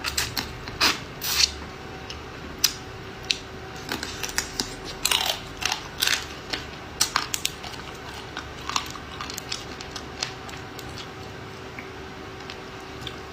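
Close-up eating sounds: chewing raw marinated crab, with many short, irregular wet smacks and clicks, busier in the first half.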